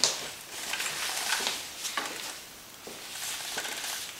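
Rustling and scuffing of a sheet of fiberglass mat being handled and smoothed down by hand, in a series of brief rustles.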